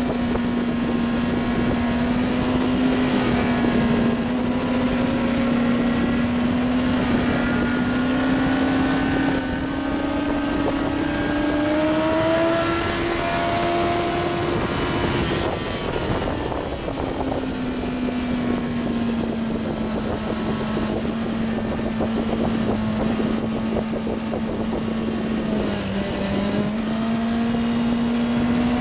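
Kawasaki ZX-9R inline-four engine running hard at high revs under an onboard microphone, with heavy wind rush. The engine note climbs slowly over the first half, drops away for a moment about halfway, then returns steady, with a brief dip near the end.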